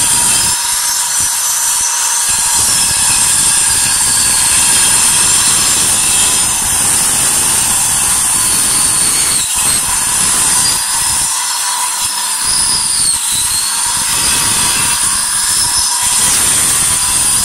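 Angle grinder with a cutting disc biting into a plastered masonry wall. A loud high whine over a dense grinding hiss, its pitch dipping briefly several times as the disc is pressed in.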